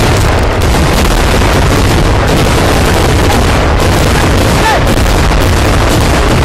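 Kerala temple fireworks (vedikettu) going off in a dense, continuous barrage: loud, overlapping blasts with no gaps between them.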